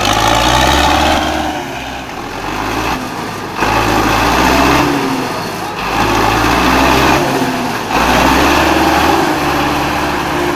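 Farm tractor's diesel engine revving hard and easing off in turns as the tractor works through deep, wet mud.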